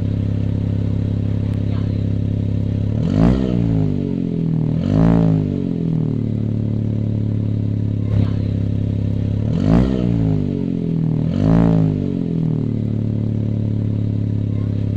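Exhaust of a Perodua Viva running a Daihatsu Mira Avy turbo engine through a Jasma FGK muffler: a steady, bassy idle broken by four quick throttle blips in two pairs, each revving up and dropping straight back to idle. A single short click comes about eight seconds in.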